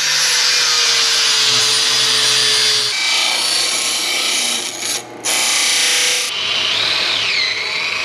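Metal-finishing power tools on a small plasma-cut steel plate, in quick succession. First an angle grinder, then a Delta disc sander grinding the plate's edges. In the last couple of seconds a cordless drill whines, its pitch rising and falling as it bores holes.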